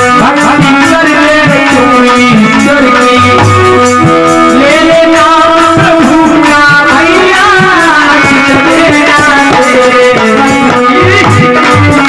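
Live bhajan music: steady held melody notes over a steady hand-drum beat, with a man's voice singing a wavering line in the middle.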